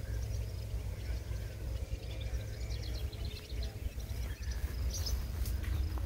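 Small birds chirping repeatedly, short high notes, over a steady low rumble.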